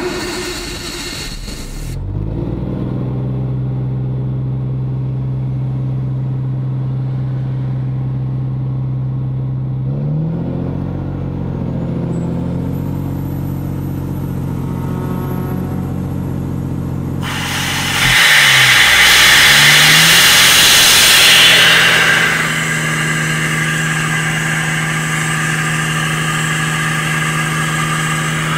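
Diesel engine of an Atlas Copco XAHS426CD portable air compressor running steadily just after starting, its speed stepping up about ten seconds in. About seventeen seconds in, a loud hiss joins it and eases after a few seconds but carries on while the engine runs at a steady higher speed.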